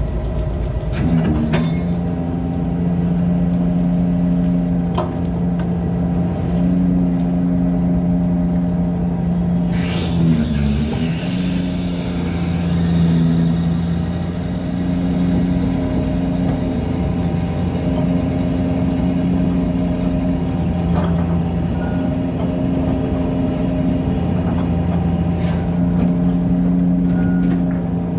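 Fishing boat's engine running with a steady low hum, dipping briefly in pitch about ten seconds in, along with a short high sweeping sound and a few clicks.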